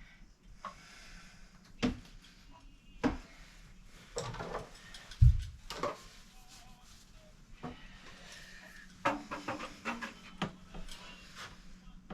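Scattered knocks and clicks of objects being handled, with one heavy low thump about five seconds in and a quick run of clicks near the end.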